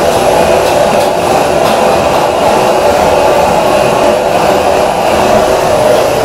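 Loud, steady mechanical roar of running kitchen equipment, strongest in the middle of the range, with a few faint clicks.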